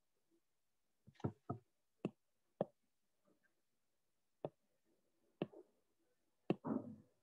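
A handful of sharp, irregularly spaced clicks in a small quiet room, with a short, fuller tap or rustle near the end.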